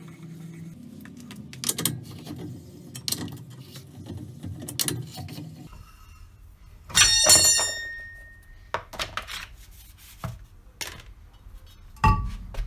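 Metal knocks and clinks of tools and parts while a car's rear brake is being taken apart, with one loud clang about seven seconds in that rings on for a second, and a sharp knock near the end.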